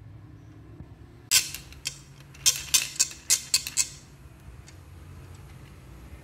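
Glass-like marbles clicking against each other and the clear plastic tube that holds them: a run of about eight sharp clacks over some three seconds, then stillness.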